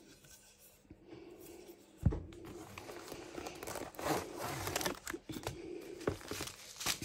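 Cellophane packaging of a diamond-painting kit crinkling as it is handled, with a single thump about two seconds in.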